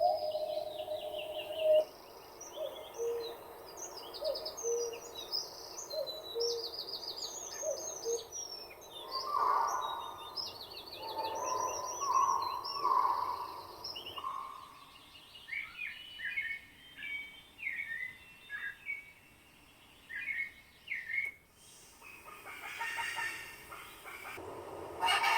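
Birds chirping and calling, a busy mix of quick high chirps, trills and a few lower notes. The mix changes abruptly twice, about halfway through and again near the end.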